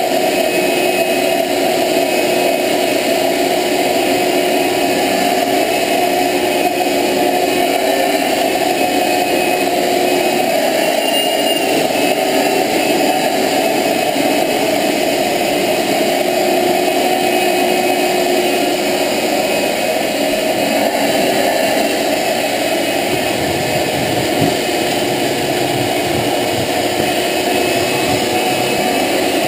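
Shop-Vac wet/dry shop vacuum running steadily, its motor hum and the rush of air through the hose and floor nozzle holding at one even level.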